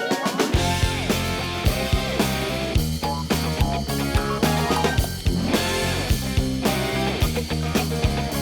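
Upbeat rock theme music with electric guitar and a steady drum beat.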